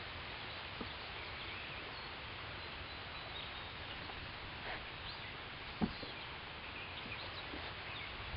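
Outdoor lakeside ambience: a steady hiss with faint, scattered bird chirps and one short knock about six seconds in.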